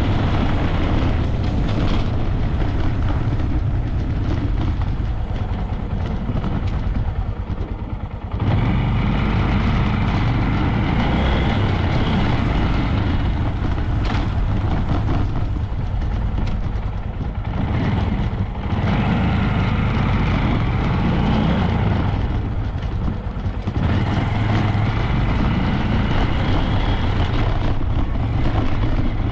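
Honda Grom 125's single-cylinder engine running under way, a steady dense low engine sound that dips briefly about eight seconds in and a couple of times later.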